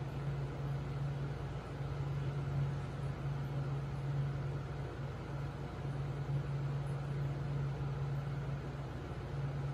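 Aquarium equipment running: a steady low hum over an even hiss of air bubbling in the tank.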